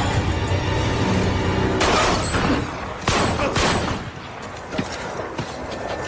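Dramatic film score with several gunshots cracking through it between about two and four seconds in.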